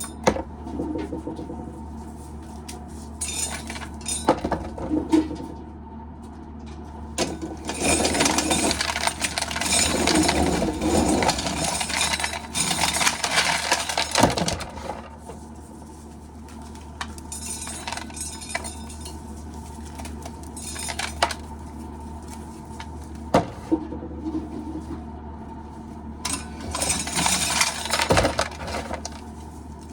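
Irregular metallic clinking and rattling, with spells of busier clattering, over a steady low hum.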